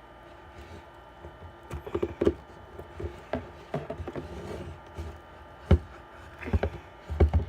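Scattered knocks, taps and clatter of slime-making containers and utensils handled on a tabletop, with a few sharper knocks in the second half.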